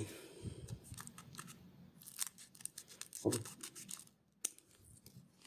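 Scissors snipping across the top of a foil Pokémon booster pack wrapper, a run of sharp crackling snips with the foil crinkling, loudest two to three seconds in, then tapering off with a last click.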